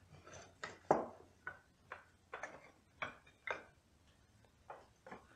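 Wooden bucket staves clicking and knocking against one another and the wooden stave-raising jig as they are set upright in place: a string of light, irregular clicks, the sharpest about a second in.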